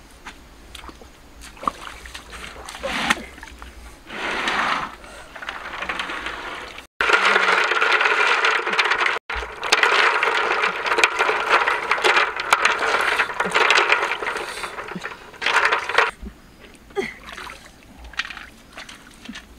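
Water sloshing and splashing as hands scrub duck eggs and snails in a shallow basin, with the shells clicking against one another; it starts suddenly about seven seconds in and runs for about nine seconds, with quieter splashing before and after.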